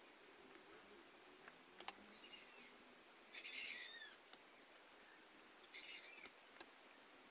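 Faint bird calling in the background: short chirping calls with falling notes, three times about two seconds apart, over low room noise. A few light clicks, the sharpest a pair about two seconds in.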